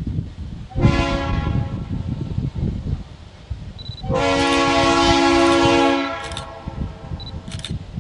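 Air horn of a diesel freight locomotive, the ex-Conrail GE C40-8W lead unit, sounding a long blast, a second longer and louder blast, then two short toots. The horn sounds over a low wind rumble.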